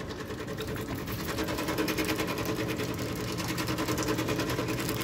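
Steady machine hum with a fine, rapid buzz, from the opened hot-drink vending machine running.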